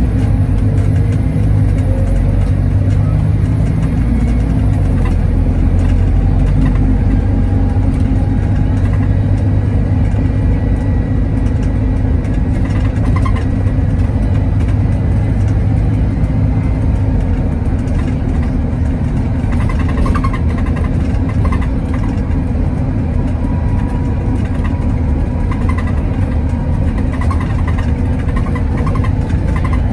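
Interior of a Volvo B5TL double-decker bus on the move, its four-cylinder diesel engine running steadily under the road rumble.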